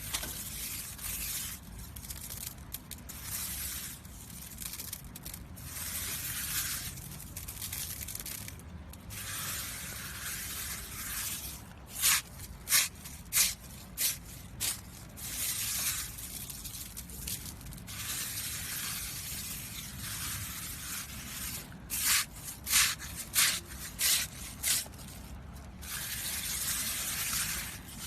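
Hissing, spray-like noise that comes and goes in stretches of a second or more, with two runs of about five short, loud spray bursts, one around the middle and one near the end.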